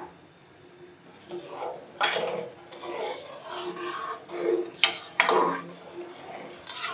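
Slotted metal spoon stirring a wet semolina halwa mixture in a metal karahi, scraping and knocking against the pan, with a sharp metallic click about five seconds in.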